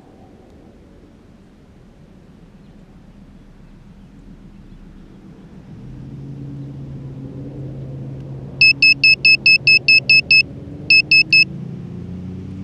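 Electronic beeper on a downed FPV quad sounding right beside the microphone, typical of a lost-model alarm: a fast run of about ten loud, high beeps, a short pause, then three more. Under it a low engine hum builds from about six seconds in.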